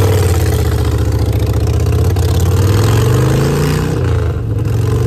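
2015 Harley-Davidson Iron 883's air-cooled Evolution V-twin running loud through newly fitted, unbaffled ShotGun exhaust pipes while the bike is ridden. The engine note dips briefly about four seconds in, then picks back up.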